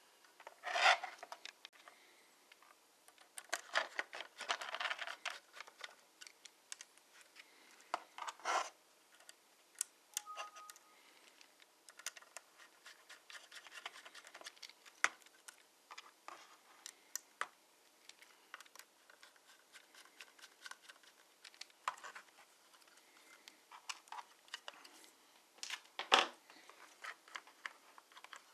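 Irregular clicks, taps and scrapes of small plastic and metal parts being handled on an Acer Aspire 5 A515 laptop, with a few louder scratchy handling noises scattered through.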